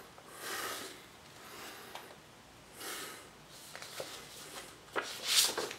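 Sheets of drawing paper rustling and sliding as they are handled, in several soft swishes with a few small clicks, the loudest near the end.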